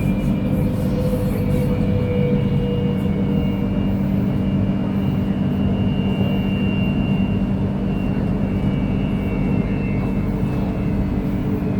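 KTM Komuter electric commuter train running: a steady rumble and hum, with a faint high whine that drifts slowly in pitch.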